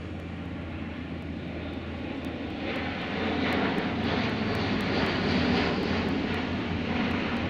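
Airbus A400M Atlas's four TP400 turboprop engines and eight-bladed propellers running at display power as the aircraft passes overhead in a steep bank. The noise grows louder from about three seconds in and eases slightly near the end.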